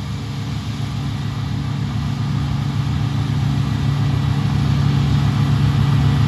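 Farm machinery engine running with a steady low drone that grows gradually louder, as the machine comes closer or works harder.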